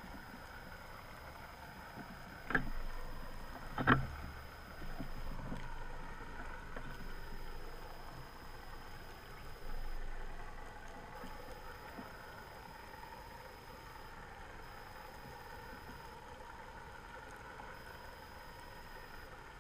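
Muffled underwater noise picked up through a camera housing: a steady hiss, two sharp knocks a little over a second apart, then a few swells of rushing water noise.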